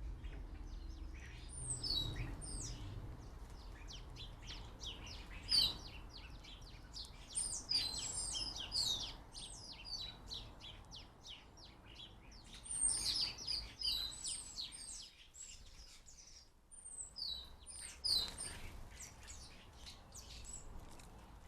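Small garden birds at a feeder chirping and twittering, many quick high calls coming in busy flurries with short lulls between.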